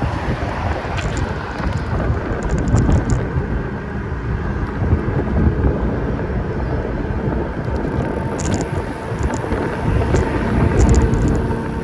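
Wind buffeting the microphone with road noise while riding, a heavy rumbling rush with scattered faint ticks.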